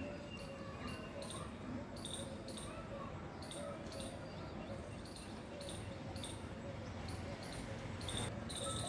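Outdoor dusk ambience: short high chirps repeating about twice a second, over faint distant voices.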